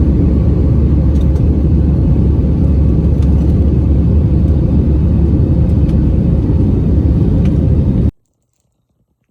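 Steady low rumble of an airliner cabin, cutting off abruptly about eight seconds in.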